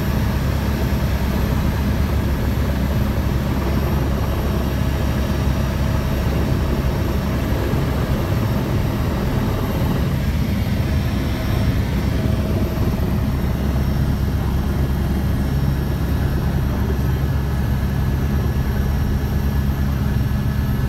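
Helicopter's rotor and engine running steadily, heard from inside the cabin while it moves low over the airport ramp and settles near the ground.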